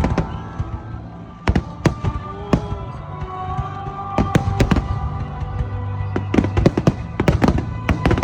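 Fireworks bursting: a string of sharp bangs and crackles, coming thick and fast a little after halfway through, over background music with held notes.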